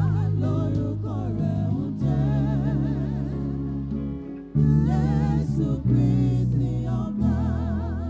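Live gospel music: singing with a strong vibrato over heavy, sustained bass notes that change every second or two.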